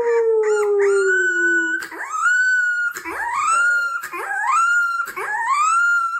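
A dog howling: a long howl that slides down in pitch, then a run of high howls that rise and hold, about one a second.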